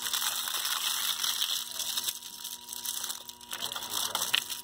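Aluminium foil crinkling and crackling as it is folded and crumpled by hand into a packet around a bundle of wooden strips.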